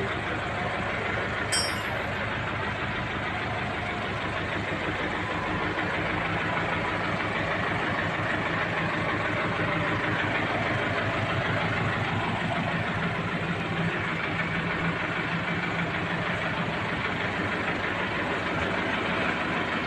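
John Deere tractor's four-cylinder diesel engine idling steadily.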